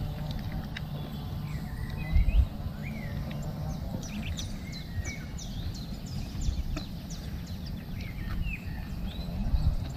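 Small birds chirping and twittering many times over a steady outdoor background, with short rising and falling calls. Two brief low rumbles, about two seconds in and again near the end, are the loudest sounds.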